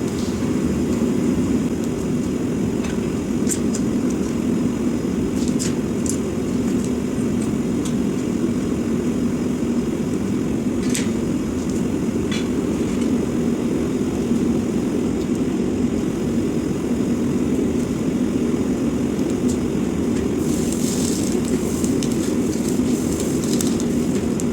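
Swan Mini Mother gas forge burning, a steady low roar from its burner, with a few faint metallic clicks.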